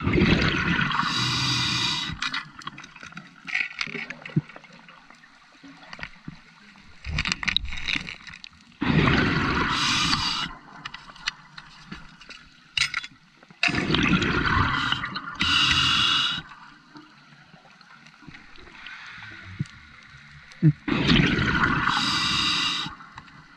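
A scuba diver's exhaled breath bubbling out of the regulator in loud bursts of about two seconds, four times and six to seven seconds apart, with quieter stretches between.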